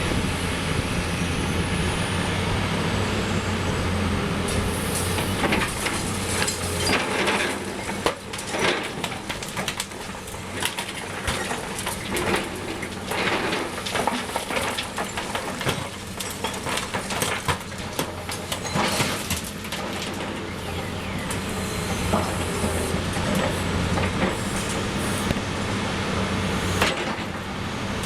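A Caterpillar 330C excavator's six-cylinder diesel engine running steadily, with a run of irregular knocks and clatter through the middle.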